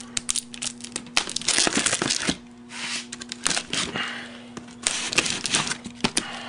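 Utility knife slicing through packing tape along a cardboard box's seam, a scratchy tearing noise in several strokes with sharp clicks and rustling of the cardboard.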